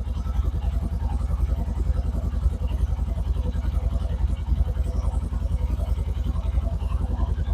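2016 Polaris RZR 900 Trail Edition's twin-cylinder engine idling steadily with a rapid even pulse, run for a few seconds after an oil change to circulate the fresh oil before the level is rechecked.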